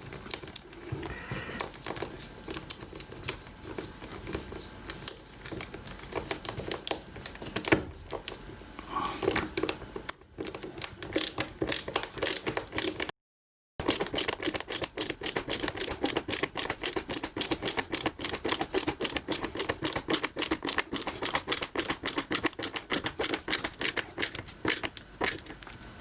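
Screw being driven back into a door hinge's bamboo-packed screw hole: a fast, even run of clicks that breaks off briefly about halfway through.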